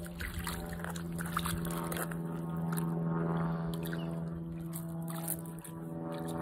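A dog splashing and pawing in shallow water at a gravel stream edge, with short scattered splashes and stone scrapes, over a steady low hum with overtones from an unseen source.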